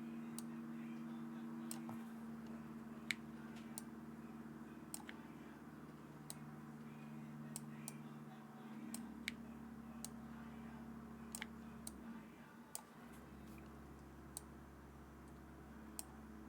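Mechanical keyboard with Akko x HMX Mirror linear switches on a carbon fiber plate, no foam: single keys pressed one at a time, separate sharp clacks at irregular intervals of about one a second, over a steady low machine hum.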